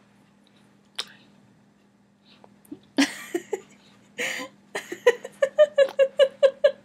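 A toddler's voice: a breathy shout about three seconds in and another a second later, then a fast run of short, evenly spaced 'wa-wa' syllables at one steady pitch, about four or five a second, made by patting a hand against his mouth while voicing.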